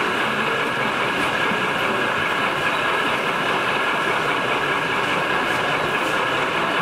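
0 gauge model diesel locomotive running on a layout, a steady, even mechanical noise with a faint constant hum.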